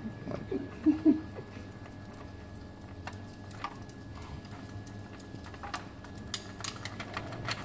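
Scattered light clicks and taps of a spark-plug socket and extension being turned and worked by hand in a spark-plug well, with a cluster of sharper clicks near the end.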